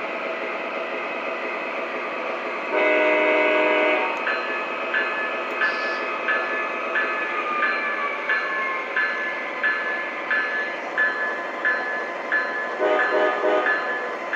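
Proto-Sound 3.0 sound system of an MTH RailKing ES44AC model diesel locomotive playing diesel idle sounds from its speaker: one horn blast about three seconds in, then the bell ringing steadily at about one ding every 0.7 seconds, with a few short horn toots near the end.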